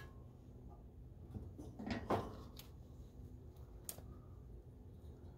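Handling noises at a propane gas grill: a short clunk and scrape about two seconds in, then a single sharp click about four seconds in, over faint low background noise.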